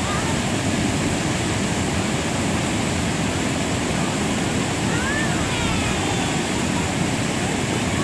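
River water rushing over a low dam and through shallow rapids, a steady, even rushing noise.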